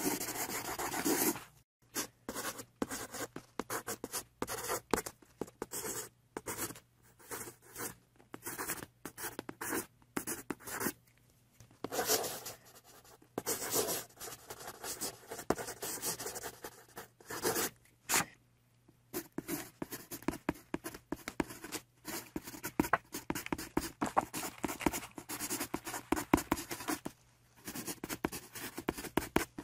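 Felt-tip marker pens scratching across paper, drawing lines and then colouring in, in quick irregular strokes with short pauses between them.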